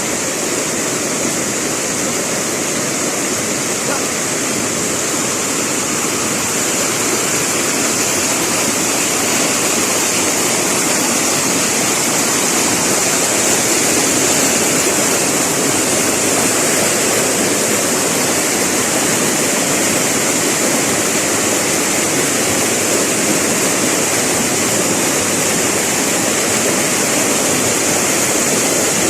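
Steady rush of fast-flowing river water, an even noise with no breaks.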